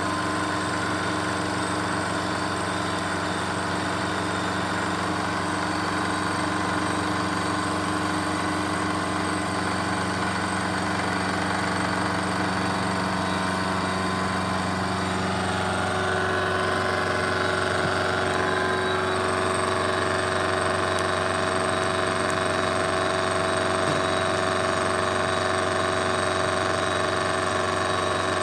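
Milling machine spindle running while a milling cutter cuts along the edge of a metal plate held in a vise: a steady mechanical hum with several whining tones, which change pitch about sixteen seconds in.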